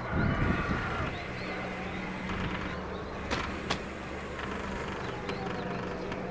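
A steady low engine drone with a faint buzz, the distant aircraft or motor sound heard while filming the fire. Wind rumbles on the microphone in the first second, and two faint clicks come near the middle.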